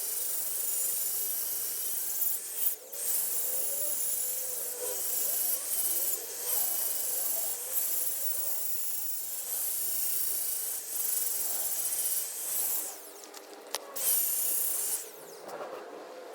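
Repeated bursts of loud, high-pitched hissing, each a second or two long with short breaks between, carrying a faint wavering whistle.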